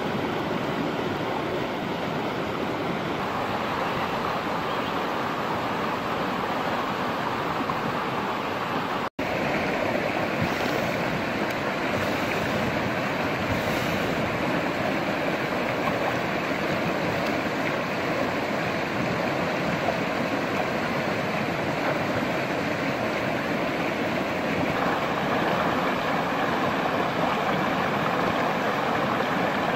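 A fast, swollen river rushing over rocks, a steady wash of water noise. It cuts out for an instant about nine seconds in.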